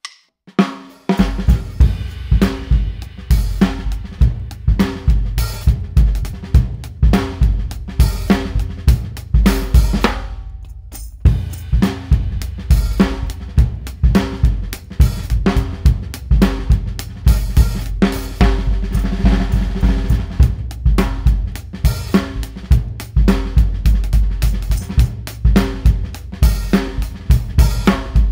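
A 1950s WFL drum kit played with sticks in a steady groove of bass drum, snare, hi-hat and cymbal. The playing comes in about a second in and has a short break about ten seconds in.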